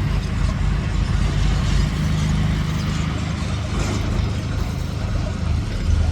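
An engine running steadily at a low, even pitch, with a rushing noise over it.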